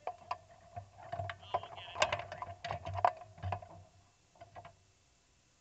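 Clicks, knocks and rustling of a driver unbuckling and climbing out of a stopped open-wheel race car right beside the onboard camera, the suit and body brushing and bumping against the car. The handling noises die away near the end.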